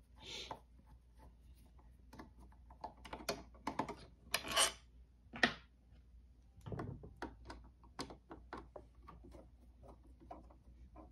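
Screwdriver backing out the small screws that hold the top cover of a Singer sewing machine: a faint, irregular run of small clicks and taps with a few short scraping rasps.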